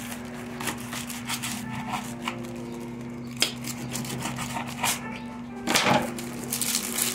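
Gloved hands handling a paper-wrapped lettuce wrap on a plate: scattered light clicks and taps with paper rustling, and a louder crinkling rustle about six seconds in. A steady low hum and faint background music run underneath.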